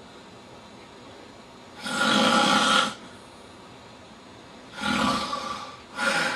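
A man snoring loudly, three snores in all: a long, loud one about two seconds in, another a little before five seconds, and a shorter one starting near the end.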